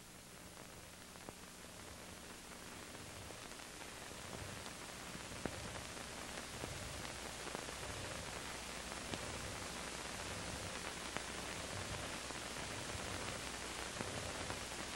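Water running steadily from a boiler water sample line, a hiss that grows gradually louder, with a few faint clicks.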